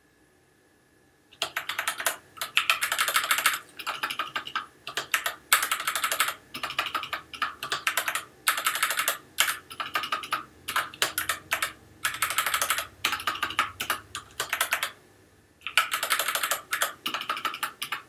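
Computer keyboard typed on in quick runs of keystrokes with short pauses between them, starting about a second and a half in.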